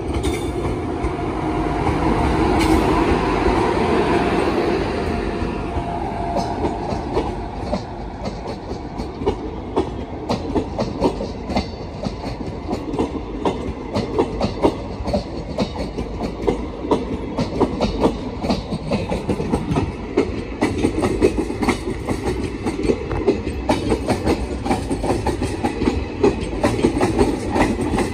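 WAG-9 electric locomotive passing with a steady rush for the first several seconds, followed by a long rake of ICF parcel vans rolling by, their wheels giving a continuous rapid clickety-clack over the rail joints.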